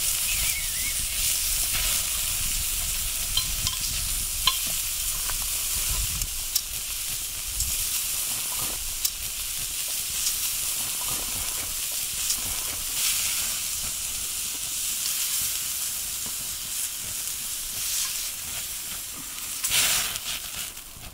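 Wagyu beef steaks sizzling steadily on a Yokozawa Teppan thick iron plate over a wood fire, with a few light metal clicks of tongs. A louder burst of sizzling comes near the end.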